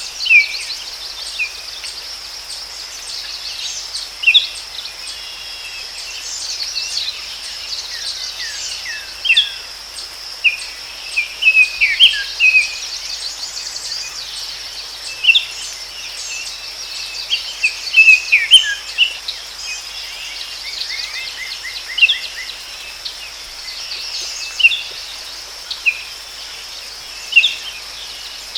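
Forest ambience: a steady high insect drone with birds chirping in short, scattered calls and a quick trill about twenty seconds in.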